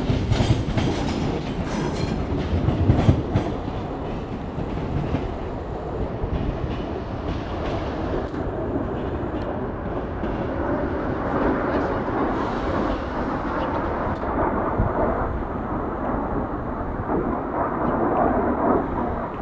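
SNCF electric multiple unit rolling away over the station tracks: its wheels clack over rail joints and points for the first few seconds, then settle into a steady rolling noise.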